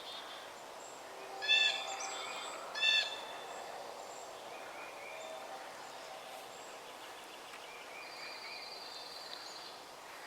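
Wild birds calling in spring woodland: two loud, short, high-pitched calls about a second and a half apart, near the start, over fainter birdsong that carries on throughout.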